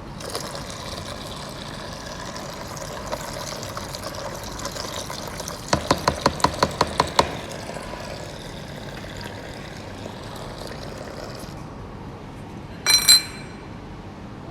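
Water running and splashing, with a quick run of about nine clicks around the middle. The water stops, then a loud ringing metal clink follows near the end.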